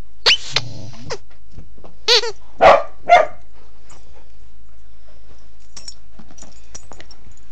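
Corgi barking and yipping: four sharp calls in the first three and a half seconds, the first a high yip, then only faint scuffling.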